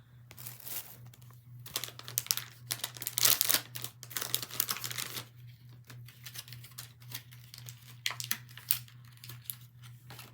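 Packaging of a blind-pack toy being torn open and crinkled by hand: irregular rustling and crackling, loudest and most continuous in the middle.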